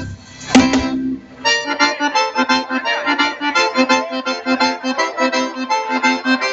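Live forró band amplified through a stage PA: the band stops on a sharp hit about half a second in, and after a short gap the accordion leads a new passage over a steady pulsing bass beat.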